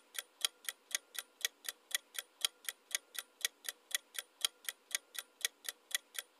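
Countdown-timer ticking sound effect: an even, clock-like tick at about four ticks a second, counting down the answer time.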